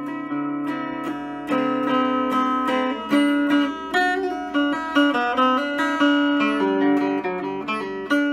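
Epiphone Zenith archtop guitar being played, picked chords with a melody line on top, the notes ringing on between strokes.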